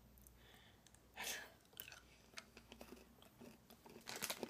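Near silence with a few faint mouth clicks and a soft breath about a second in, then light rustling building near the end.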